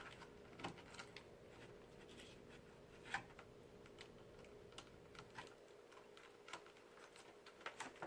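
Faint, scattered small clicks and taps of laptop parts being handled while a connector is fitted, one plainer click about three seconds in and a few more near the end.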